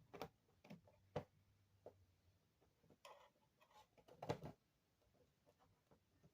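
Faint, scattered small clicks and taps of hand tools and tiny screws against an iPhone being worked on, at irregular spacing, with the loudest couple of knocks about four seconds in.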